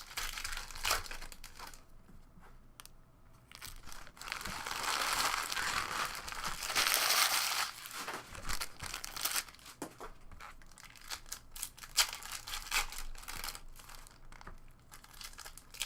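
Foil trading-card packs being torn open and their wrappers crinkled, with cards handled. There are many small clicks and rustles, and a louder stretch of crinkling around the middle.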